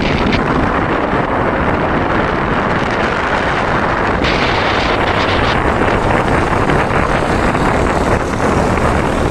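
Loud, steady wind rushing over the microphone of a camera moving along a road.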